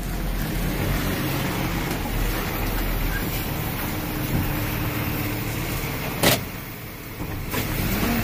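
Truck engine running with a steady low rumble, heard from inside the cab, with a sharp click about six seconds in.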